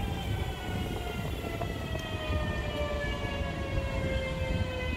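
BM 73 electric multiple unit slowing as it pulls in along the platform, its traction motors giving a whine that falls steadily in pitch, over the low rumble of the running train.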